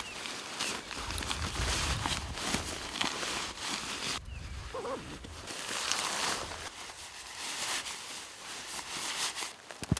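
Rustling and crinkling of nylon camping gear being handled, as a sleeping bag is stuffed into its sack and the tent gear is packed, with a low rumble through the first half.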